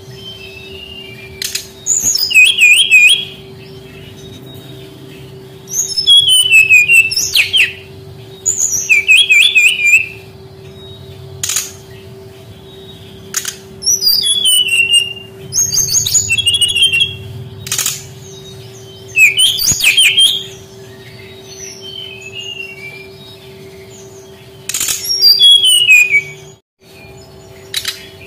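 Brown-chested jungle flycatcher singing: about eight high, warbling phrases of a second or two each with short pauses between, plus a few sharp single clicks, over a steady low hum.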